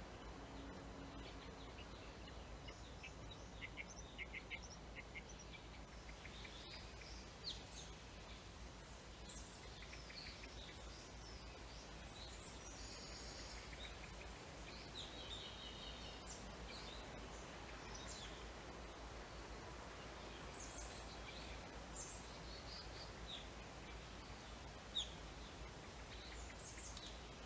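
Faint scattered bird chirps over a steady low background hum.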